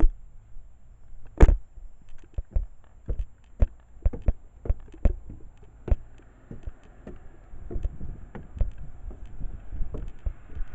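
Footsteps and knocks from handling the camcorder while walking, an irregular series of thuds about one or two a second, with a faint wind hiss coming in about halfway through.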